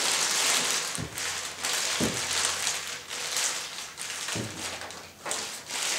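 Plastic bag crinkling and rustling as a router motor is unwrapped from it, with a few light knocks of the router against the table.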